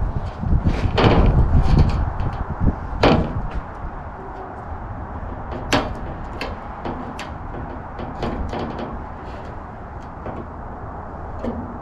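A large thin aluminum sheet being handled and pressed on, giving low wobbling thumps early on, then sharp clicks and small taps as pieces are laid and shifted on the metal.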